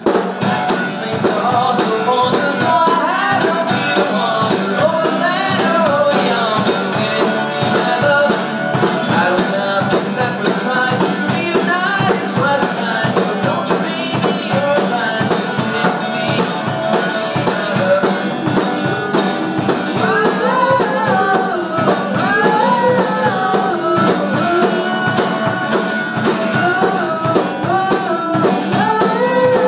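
Live pop-folk song: a man singing over an acoustic guitar, with a drum kit keeping the beat.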